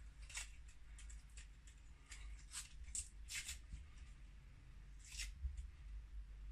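Faint rustling and crackling of hands handling the calculator kit's parts and a sticky backing material: a dozen or so short, light crackles over a low steady hum.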